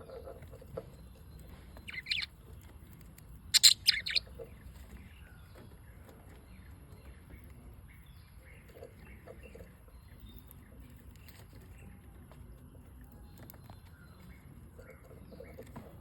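Pet lovebirds chirping: a brief loud call about two seconds in, then a louder cluster of several sharp calls around four seconds, with soft scattered chirps the rest of the time.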